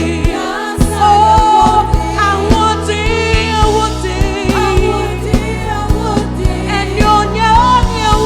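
Live gospel worship music: voices singing over a band with bass and a steady drum beat.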